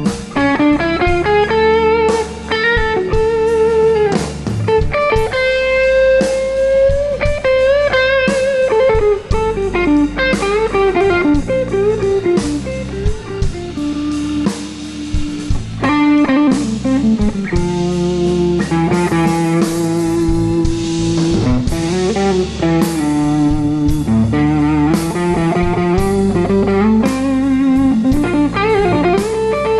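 Blues band playing live, an instrumental break with no singing: a lead line of bent, wavering notes over bass and steady drum hits.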